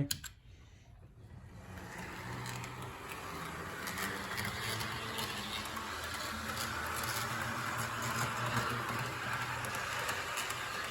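Model EMD GP7 diesel locomotive running on its track: the small electric motor whirs and the wheels click lightly over the rails, building up over the first two seconds and then running steadily.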